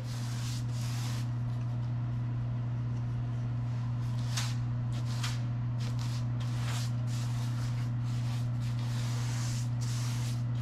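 Paintbrush stroking gloss paint along trim into a ceiling corner: soft brushing swishes, a few early on and then more often from about four seconds in, over a steady low hum.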